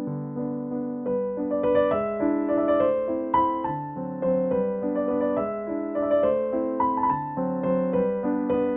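Background music: a soft piano or electric-piano piece playing chords and a slow melody, notes struck about every half second.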